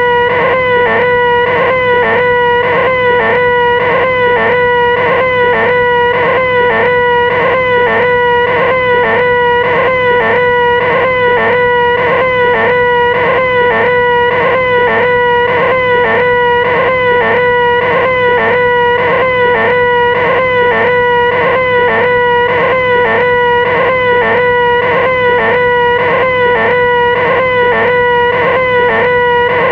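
A nasal, whining vocal 'eeeehhh', the 'most annoying sound in the world', held loud on one pitch without a break and pulsing slightly and evenly.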